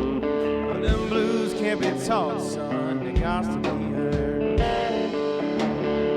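Blues-rock background music led by guitar, with pitch-bending slides and drum hits.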